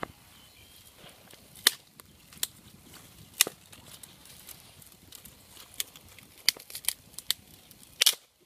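Small fire of dry twigs and grass crackling, with scattered sharp pops and snaps a second or so apart and a louder cluster of snaps near the end.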